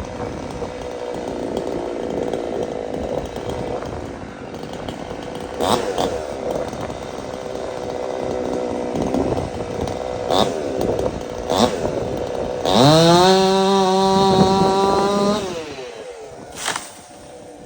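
Chainsaw running while felling a tree, with a few sharp knocks; about 13 s in it revs up to full throttle, holds for about three seconds, then drops off.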